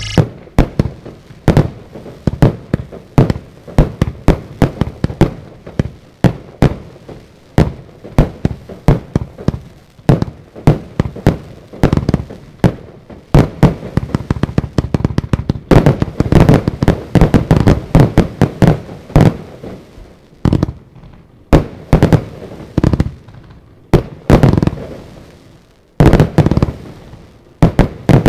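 Stienen 'The Secret Wizard' firework cake firing a long, rapid volley: a dense run of sharp shots and bursts, several a second, with a brief lull just before the end.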